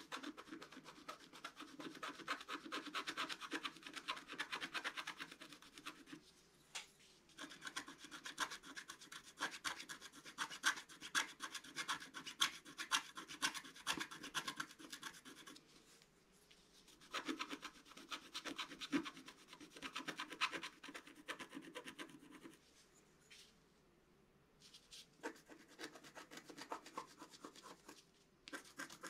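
Wooden stylus scratching the black coating off a scratch-art page: rapid back-and-forth strokes in four spells of several seconds, with short pauses between them.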